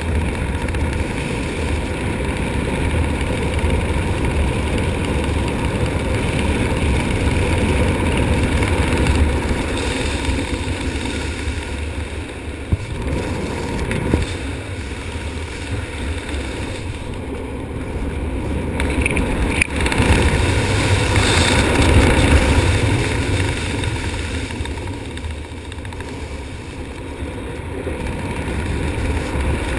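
Wind rushing over the jumper's camera microphone during a descent under an open parachute canopy, a steady low rumbling noise that swells and eases, strongest a little past the middle.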